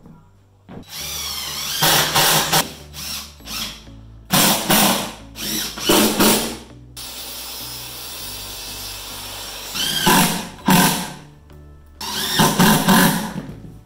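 Cordless DeWalt drill-driver driving screws into plywood: about five short bursts, its motor whine rising and falling in pitch as each screw goes in. Faint background music underneath.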